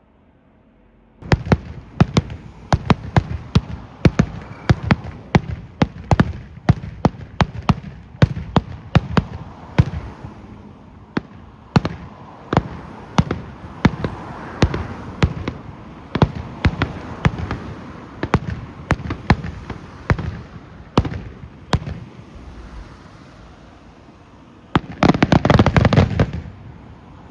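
Fireworks going off: a quick, irregular series of sharp cracks, then a dense, loud crackling burst near the end.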